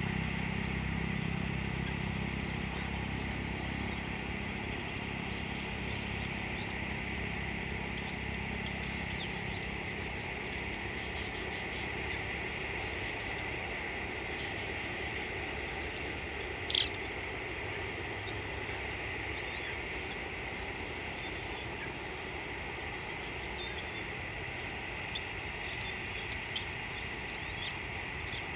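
Steady outdoor insect chorus, with a low rumble that fades over the first few seconds and one short, sharp chirp about halfway through.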